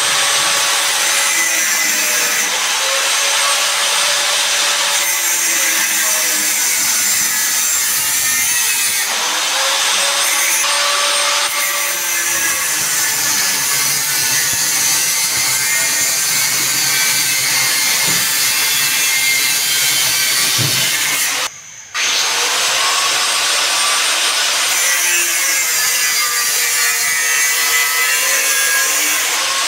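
Handheld angle grinder with a cutting disc running and cutting through steel tube, its motor pitch dipping and recovering repeatedly as the disc bites into the metal. The sound drops out for an instant about two-thirds of the way through, then carries on.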